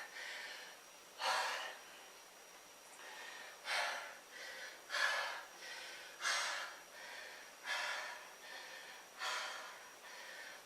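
A man breathing hard and fast through the mouth, out of breath after a set of push-ups. There is a strong breath about every second and a half, with softer ones in between.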